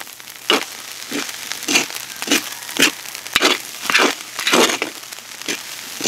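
Metal spatulas scraping and tossing fried rice in a large metal wok, in short strokes about twice a second.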